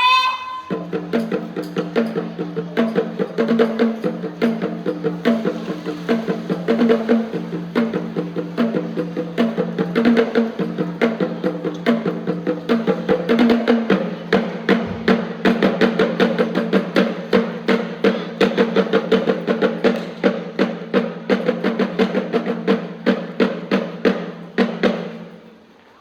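Music with a fast, steady percussion beat of sharp, knocking strikes over sustained low tones, fading out near the end.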